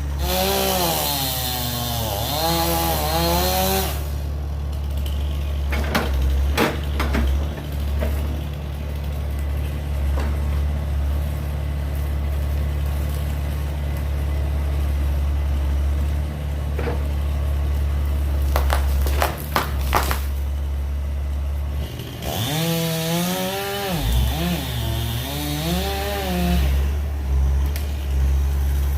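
Heavy land-clearing machinery running with a steady low diesel drone, its engine revving up and down twice under load. A few sharp cracks of breaking wood come through it.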